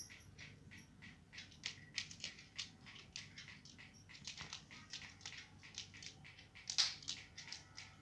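Rose-ringed parakeet's claws tapping and scratching on a wooden board as it walks about: a quick, uneven run of small sharp clicks, several a second, with one louder click near the end.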